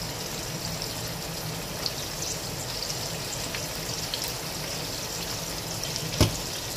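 Mutton pieces frying in oil in a pan on a gas stove, a steady sizzle as the raw meat browns. One sharp knock about six seconds in.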